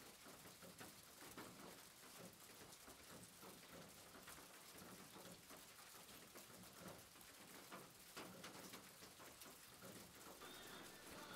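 Near silence: faint room tone with scattered soft taps.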